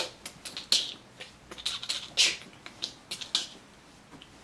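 A boy imitating a crackling fire with his mouth: short hissy bursts and an irregular run of clicks and pops, which stop about three and a half seconds in.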